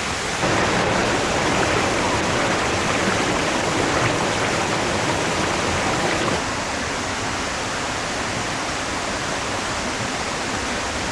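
Waterfall rushing steadily, a dense hiss of falling water that is louder for the first six seconds or so, then drops a step softer.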